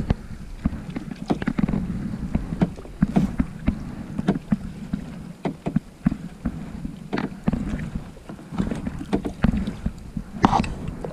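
Kayak paddling on a calm river: water splashing and lapping against the plastic hull, with many small irregular knocks and taps.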